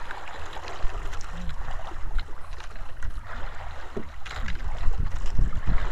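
Wind rumbling on the microphone and sea water washing against a small outrigger fishing boat, with a few scattered knocks.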